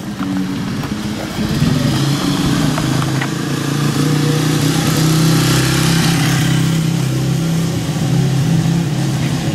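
A motor vehicle's engine running close by with a steady low hum, the hiss of its passing swelling in the middle and easing off toward the end.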